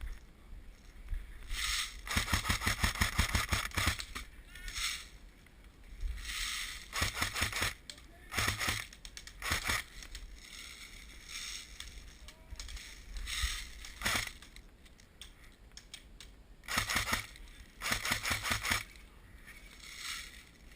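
Airsoft guns firing in full-auto bursts: strings of rapid clicking shots, about six bursts of half a second to two seconds each with gaps between them. The longest burst comes near the start.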